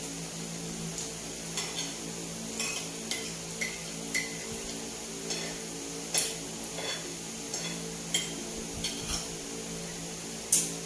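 Spoon and fork clinking on dishes while eating: about a dozen short clinks, two sharper ones about six seconds in and near the end, over a steady low hum.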